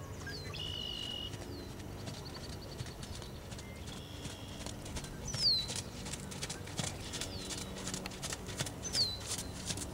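Hoofbeats of a Thoroughbred gelding trotting on sand arena footing, a run of soft, even strikes.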